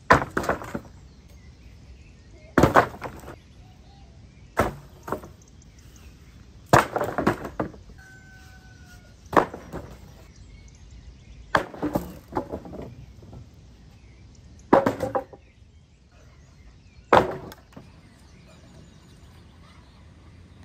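Loud knocks and bangs of building work with scrap materials, about one every two to three seconds, a few coming as quick doubles with a short ringing tail.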